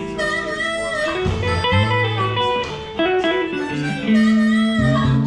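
Live band playing at a sound check: electric guitar playing bluesy lines over sustained low notes.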